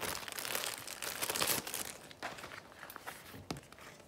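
Clear plastic bag crinkling and rustling as it is handled and a paper target is drawn out of it. It is loudest in the first couple of seconds, then gives way to quieter paper handling.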